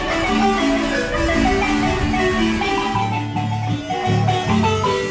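Instrumental music: a quick melody of short struck notes, joined by a deeper bass line about three seconds in.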